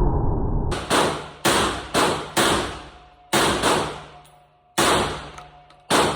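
SDS VP12 12-gauge semi-automatic shotgun firing about nine shots in quick, uneven succession, each report ringing out and fading. Before the first shot, a dense muffled noise cuts off abruptly.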